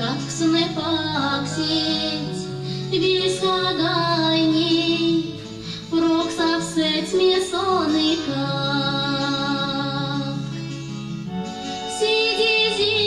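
Recorded song playing as dance music: a woman's voice sings a melody over an instrumental backing with plucked strings and a steady bass line.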